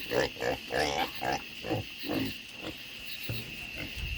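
Pigs grunting: a quick series of short grunts, several a second, that fades after about two and a half seconds. Under it runs the steady high trill of night insects, crickets.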